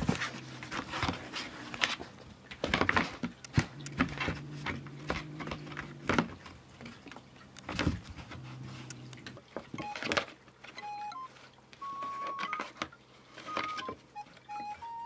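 Cats' paws batting and scuffing at a cardboard play box with holes and at a fluffy wand toy, in a string of irregular taps and scratches. A low steady hum runs under the first part, and a few short soft tones come near the end.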